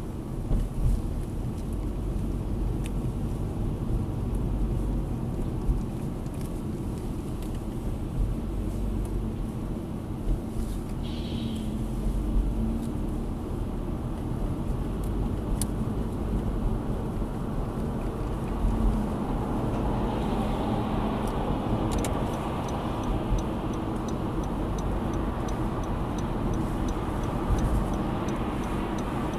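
Steady road and engine noise inside a car cabin as the car speeds up onto a highway. About two-thirds of the way in, the turn-signal indicator starts a regular ticking for the merge.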